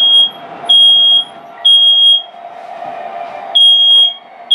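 Smoke alarm sounding, triggered by smoke from a model train's smoke unit: loud half-second beeps of one high tone in groups of three, about one a second, with a short pause between groups, the temporal-three fire alarm pattern.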